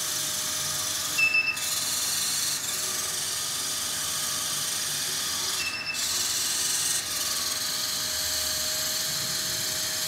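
Small table-top vacuum robot running: the PC cooling fan that serves as its suction gives a steady hiss with a steady hum, while its two servo-driven wheels turn it across the table. The sound briefly changes twice, with a short louder burst about a second in and another change near six seconds in.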